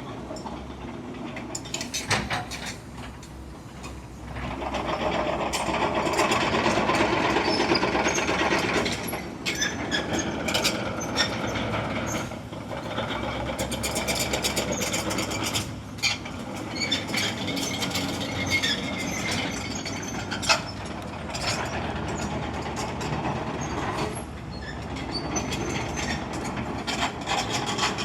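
Caterpillar 314E CR excavator working, its CAT C4.4 diesel engine running steadily and growing louder under load about four seconds in, with many sharp clanks and knocks throughout.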